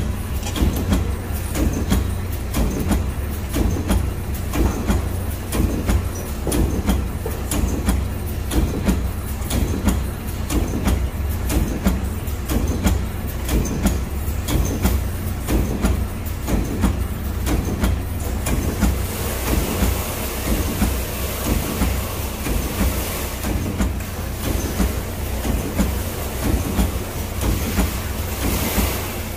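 Automatic wire-mesh welding machine running: a steady low hum under an even, rhythmic mechanical clatter as it advances and spot-welds the mesh. A hiss joins in about two-thirds of the way through.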